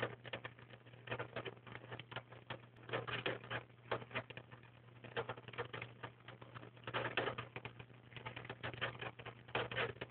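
A hamster gnawing on the wire bars of its cage: rapid clicking and rattling of teeth on metal, in short bursts every second or two.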